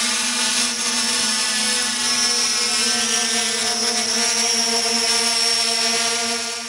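Multirotor drone's propellers running with a steady high hum, fading out at the very end.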